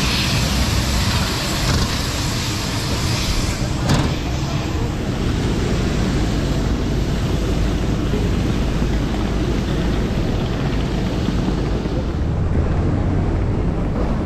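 Steady airport apron noise: a low rumble of aircraft and ground equipment running. The sound changes abruptly about four seconds in.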